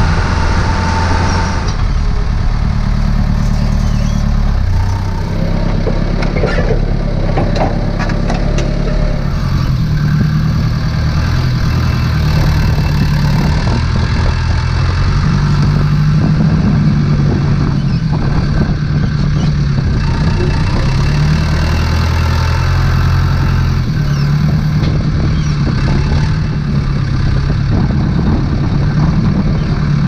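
Tractor engine running steadily as it drives, its pitch stepping up and down with the throttle, with a few sharp rattles and clicks about a quarter of the way in.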